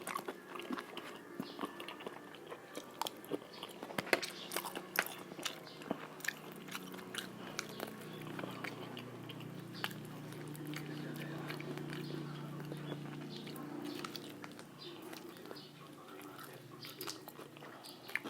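A person eating crispy fried chicken close to the microphone: wet chewing with frequent sharp crunches of the breading.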